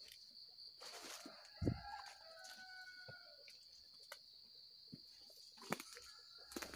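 A rooster crowing once, starting about a second in and lasting about two seconds, over a steady high insect chirr. A single loud thump comes partway through the crow.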